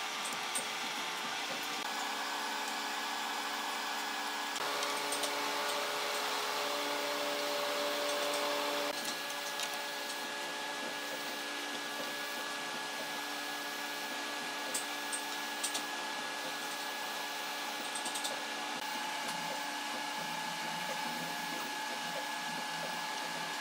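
A machine running steadily, a hum of several held tones that shifts pitch a few times, with a few light clicks over it.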